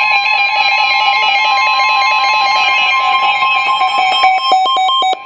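Emergency alert attention tone: a loud, steady two-pitch alarm tone, with a rapid pulsing near the end, sounding ahead of a severe thunderstorm warning message.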